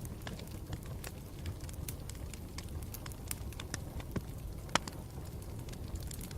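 Campfire burning with a steady low rumble and irregular crackles and pops of burning wood, one pop louder than the rest a little under five seconds in.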